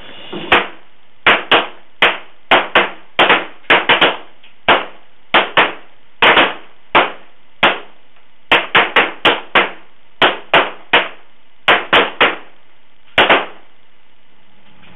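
A line of shooters firing M1911 .45 and M9 9mm pistols in a timed-fire string, each shooter's five shots within 20 seconds: about thirty sharp shots, irregularly spaced and sometimes overlapping, starting about half a second in and ending about 13 seconds in.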